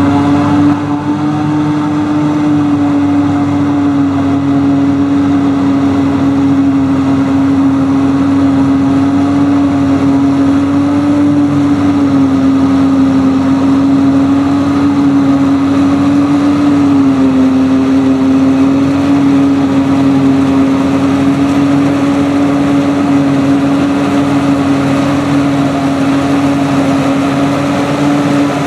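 New Holland FR 9050 self-propelled forage harvester running steadily at working speed in maize: a loud, even machine hum with one strong held tone, which sags slightly in pitch twice around the middle as the load changes.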